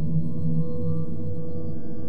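Sci-fi synthesizer sound effect: a low, steady drone of several held tones.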